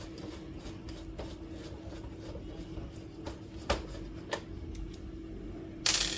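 Screwdriver work and handling on a printer's plastic casing: faint scraping and a few light clicks as cover screws are undone, with a louder clatter near the end, over a faint steady hum.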